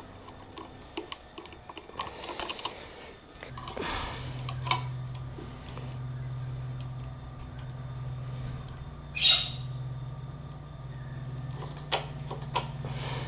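Small parts and hand tools being handled: scattered clicks and knocks, with a louder rustling burst about nine seconds in. A steady low hum starts about three and a half seconds in and carries on.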